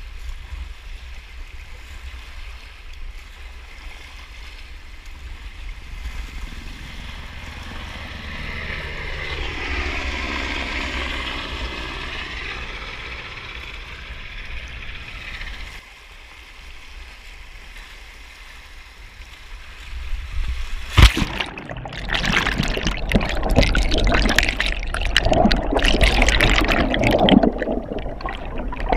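Tidal white water running past a sea kayak, heard from a deck-mounted camera with wind rumbling on the microphone. About two-thirds of the way through comes a sharp splash as the kayak capsizes, then loud bubbling and gurgling with the camera underwater.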